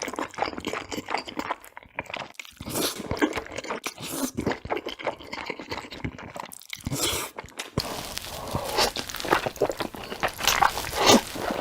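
Close-miked eating of black bean noodles: wet chewing, smacking and crunching mouthfuls, with the background changing abruptly about eight seconds in.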